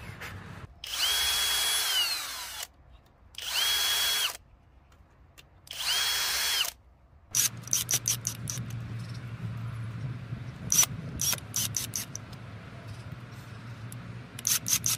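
Cordless drill driver whirring in three short runs, each speeding up and winding down. It then settles into a steady low hum with scattered sharp clicks as it drives screws through a small metal bracket.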